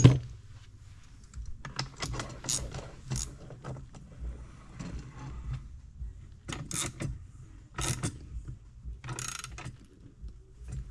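A case-splitter tool being worked by hand on a Yamaha YZ250F crankcase: a loud metal clank at the start, then short bursts of metal clicking and scraping a second or so apart as its screw is turned with a wrench to press the case halves apart.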